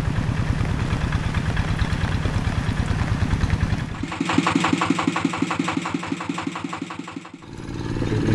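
The single-cylinder Kubota diesel of a two-wheel hand tractor running steadily with a dense, low, even chug. About four seconds in the deep part of the sound drops away, leaving a thinner, higher, evenly pulsing chug. Just before the end a full engine sound comes back.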